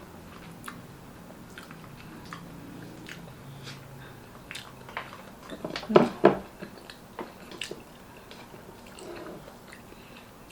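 A person chewing and biting food with many small wet mouth clicks and smacks, and a couple of louder sharp knocks about six seconds in.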